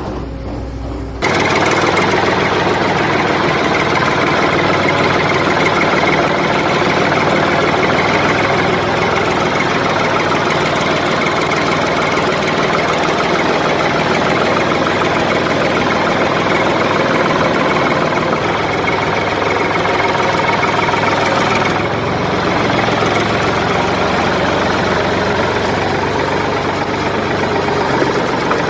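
Steady, rattling engine noise that starts abruptly about a second in and keeps on at an even level.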